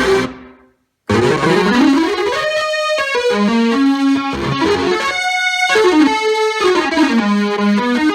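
Roland JX-3P analog synthesizer being played: a held sound dies away at the start, and after a moment of silence the playing resumes with notes whose tone sweeps up and down, mixed with stepping notes. The sound is dry, with no delay effect.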